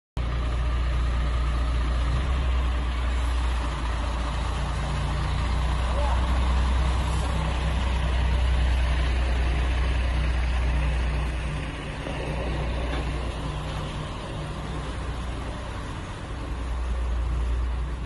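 Diesel engine of a Foton Auman semi-trailer truck running as it pulls a loaded container trailer slowly past: a steady low engine hum with rumble, easing somewhat past the middle and swelling again near the end.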